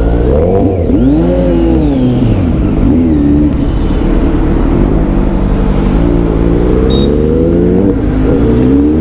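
Kawasaki Z900 inline-four motorcycle engine accelerating hard, its pitch climbing and then dropping several times as it revs up through the gears.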